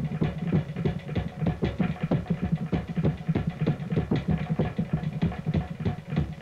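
Fast Cook Islands dance drumming: an even, rapid beat of about five or six strikes a second over a steady low tone.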